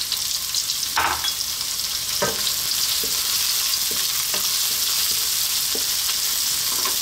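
Sliced onion, ginger and garlic sizzling in hot olive oil while a wooden spoon stirs them, sautéing the aromatics. The spoon knocks against the pan a few times, most sharply about a second in.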